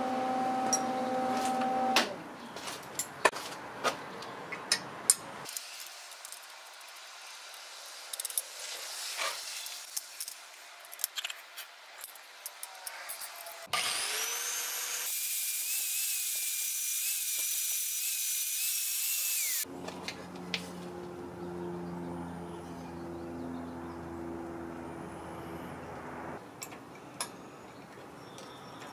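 Scattered metallic clicks and knocks of hand work on steel. Then a handheld angle grinder with a flap disc spins up with a rising whine and runs steadily for about six seconds against a small steel bracket held in a vise, before cutting off. A low steady hum follows, with a few clicks of a C-clamp being fitted near the end.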